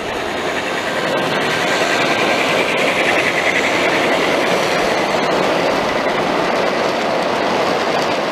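A 1:29-scale garden-railway coal train rolls steadily past on its track: two battery-powered Aristo-Craft Dash 9 locomotives followed by a string of hopper cars on steel wheels. The sound grows louder over the first couple of seconds, with a few faint clicks.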